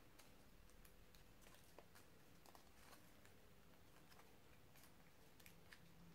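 Near silence with faint, scattered crinkles and clicks of small note paper being creased by hand.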